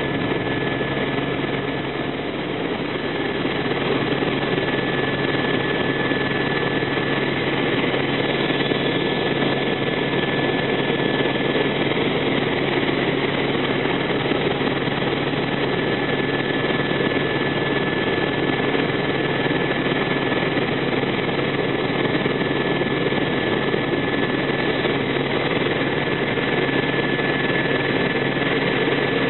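Helicopter engine and rotor noise heard inside the cabin in flight: a steady drone with a constant thin high whine over it, growing slightly louder a few seconds in.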